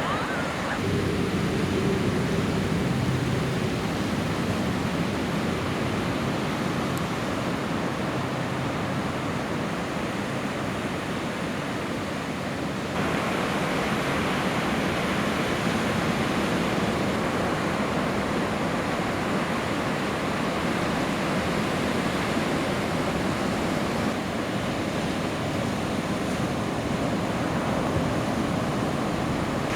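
Ocean surf with wind on the microphone, a steady noisy wash that steps up slightly about 13 seconds in.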